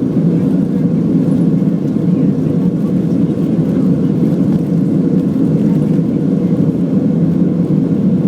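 Boeing 767 jet engines during takeoff: a loud, steady noise with most of its weight low down, unchanging throughout.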